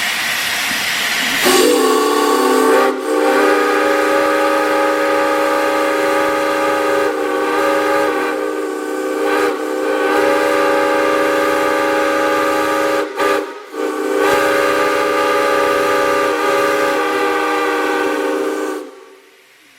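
Baltimore and Ohio six-chime passenger steam whistle. Steam hisses for about a second and a half, then the whistle sounds one long chord of several notes at once, with a brief break about three seconds in and two short dips near the thirteen-second mark. It is held until about a second before the end, where it cuts off.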